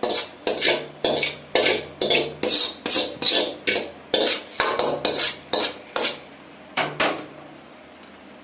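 A spoon scraping and stirring a thick coconut-and-sugar burfi mixture in a kadai, in short strokes about twice a second. The strokes stop about seven seconds in.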